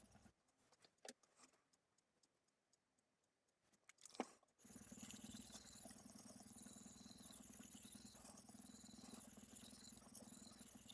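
Faint scraping of a knife blade being stroked on a 320-grit whetstone. The scraping stops briefly, with a few light clicks and one sharp click about four seconds in, then resumes steadily and cuts off suddenly at the end.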